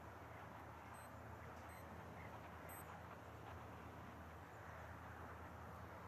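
Near silence: faint background hiss and a steady low hum, with three short high-pitched chirps or beeps between about one and three seconds in.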